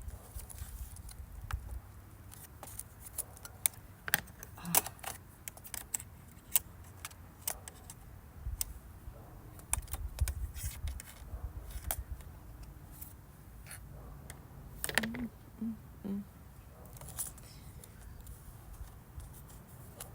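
Irregular small clicks, taps and scrapes of hands and tools working on a laptop's plastic and metal parts while taking it apart.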